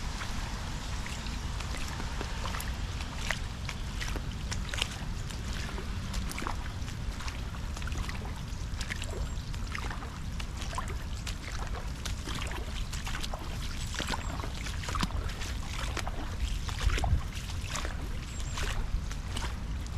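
Steady rainfall, with many drops ticking close to the microphone over a low rumble, and a louder knock near the end.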